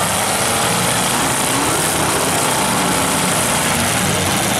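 Engines of several demolition derby cars running loud together in a steady, dense din.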